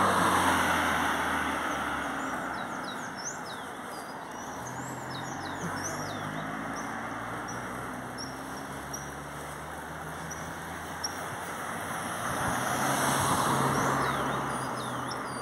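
Cars passing on the road, one right at the start and another about 13 seconds in, each swelling and fading with a low engine hum. Small birds chirp with short falling notes in between and again near the end.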